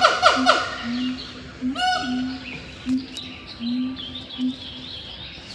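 Loud primate calls, which the recorder takes for a monkey, a siamang or a pig-tailed macaque. A run of quick falling whoops trails off in the first half-second, and another short loud call comes about two seconds in, over low hoots repeated every half-second or so that stop near the end. Fainter high chirping follows.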